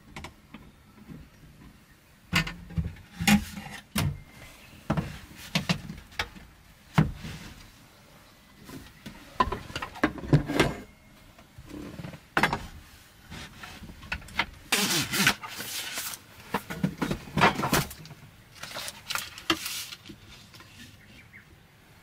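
Clacks and knocks of metal cooking gear being handled on a wooden counter: a cast hot sandwich maker and its small camp stove being lifted, moved and set down. There are two longer noisy rushes in the second half.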